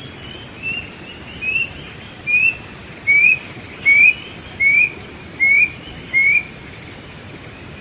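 A wild bird calling a series of eight short, rising whistled notes, about one every 0.8 seconds, getting louder over the first few. A faint, steady high insect buzz continues underneath.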